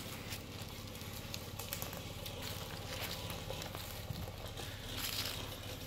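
Chevrolet Colorado ZR2 pickup crawling slowly down a dirt trail: a low steady engine hum under scattered crackles of tyres rolling over dirt, with a brief hiss about five seconds in.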